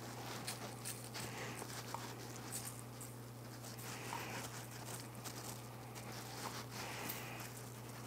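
Faint, scattered pattering and rustling of granulated sugar pinched from a small stainless-steel bowl and sprinkled over raw scones on parchment paper, over a steady low hum.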